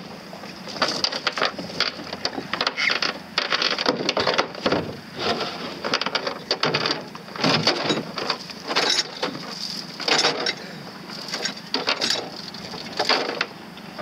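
Water lapping and slapping against the hull of a small boat in irregular splashes, some short, some lasting about a second.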